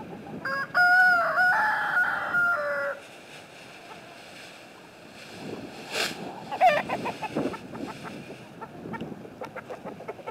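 A rooster crowing once, loud and drawn out, starting about half a second in and lasting over two seconds, with a second, shorter call from the flock a few seconds later. Hens clucking throughout.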